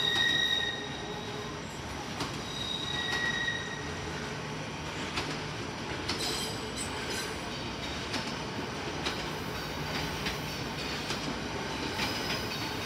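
Train moving slowly through the station, its wheels squealing briefly at the start and again about three seconds in, over a steady rumble. After that come sharp clicks of the wheels over rail joints, about once a second.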